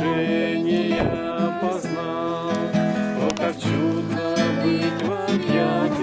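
Acoustic guitar strummed in chords, with voices singing a song along with it.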